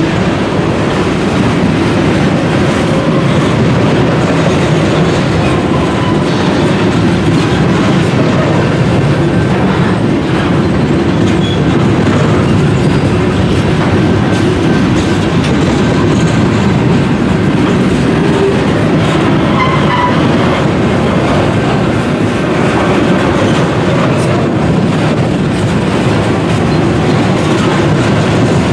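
Covered hopper cars of a grain train rolling steadily past close by: a loud, even rumble of steel wheels on rail with clicking over the rail joints. A brief faint wheel squeal comes about two-thirds of the way through.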